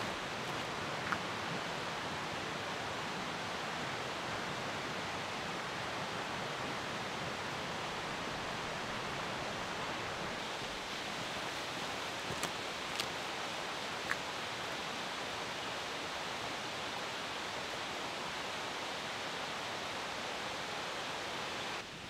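Steady rush of a creek, an even hiss of running water, with a few faint ticks about a second in and again around twelve to fourteen seconds in.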